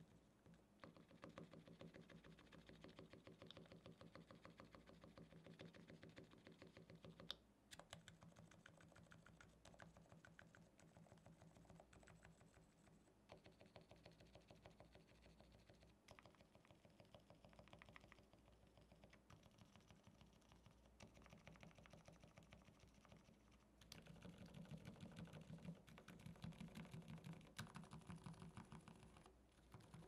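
Faint, muted typing on a Mode Eighty TKL keyboard with lubed and filmed Gateron Silent Black Ink V2 silent linear switches and GMK keycaps: rapid soft keystrokes with a dampened thock and no sharp click, a little louder in the last few seconds.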